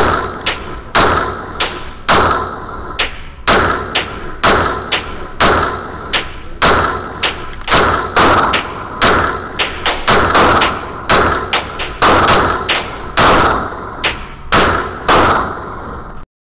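A Glock 31 pistol with a 9mm conversion barrel fired in a rapid, steady string, about two shots a second, heard from a camera mounted on the pistol itself. The shooting cuts off suddenly near the end.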